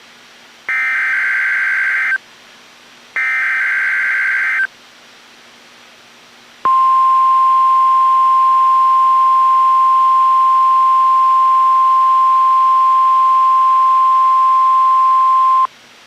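NOAA Weather Radio Emergency Alert System test signal: the last two of the three SAME header data bursts, each a harsh digital screech about a second and a half long with a one-second gap, then after a pause of about two seconds the steady 1050 Hz warning alarm tone, held for about nine seconds before cutting off.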